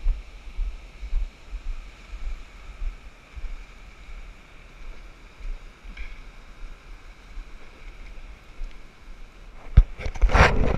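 Wind gusting on the microphone over a faint steady wash of surf. Near the end comes a sharp knock, then loud close rubbing and scraping as a hand grips the camera.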